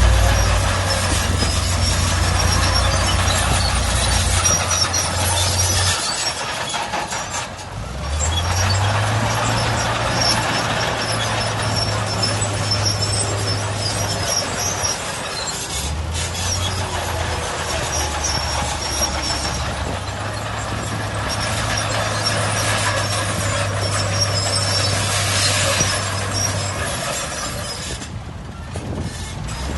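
Heavy diesel engines of construction machinery working in sand. A low engine note fades about six seconds in and revs back up about two seconds later, over a steady hiss, and dips again near the end.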